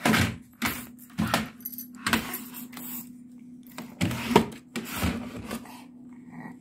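A baby banging and slapping at a computer keyboard and wooden desktop, making irregular knocks, clatters and rattles. The loudest hits come about four seconds in, over a steady low hum.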